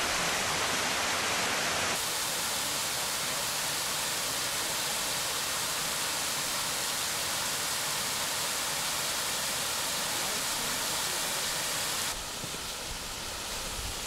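Waterfall on a mountain stream: water rushing steadily. It drops a little in level about two seconds in and again near the end.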